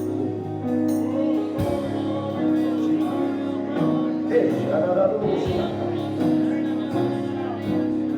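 Gospel worship music: held chords that change every second or so, with voices singing over them about halfway through.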